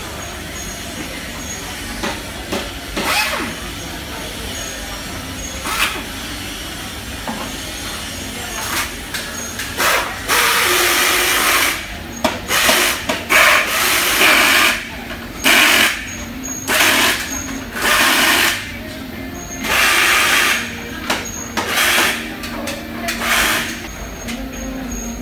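Factory workshop with a steady machine hum and, from about the middle on, repeated loud bursts of compressed-air hiss, each lasting between half a second and a second and a half, as from air guns or pneumatic tools at the assembly benches.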